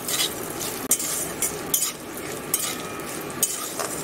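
Peanuts sizzling as they fry in oil in a metal kadai, stirred with a metal spatula that scrapes and clinks against the pan several times.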